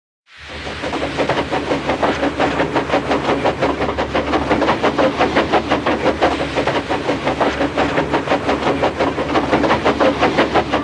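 A train running at a steady speed, fading in and then keeping an even, rapid beat of about six strokes a second over a steady low rumble.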